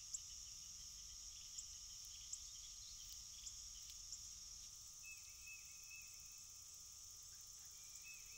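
Crickets and other grass insects chirping in a faint, steady, high-pitched chorus, with a few soft ticks.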